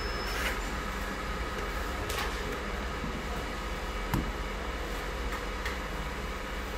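Cordless drill motor running steadily as a hole saw is fed down through a plunge drilling guide into a flat sheet, with a couple of light clicks.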